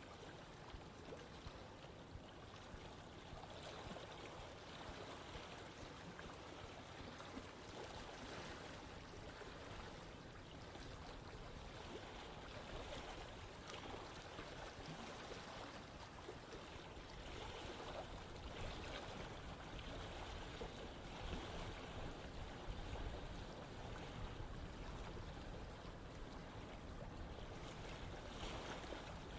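Water running in a stream: a steady rushing and gurgling with gentle swells in level.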